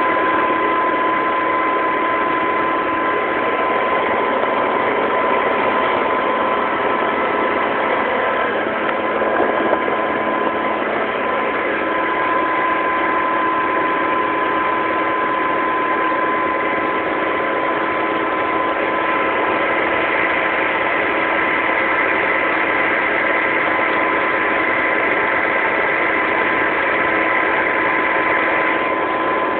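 New Holland TX68 combine harvester's diesel engine and drivetrain running steadily as it travels along a road, with a constant high-pitched whine over the engine hum, heard from the operator's cab.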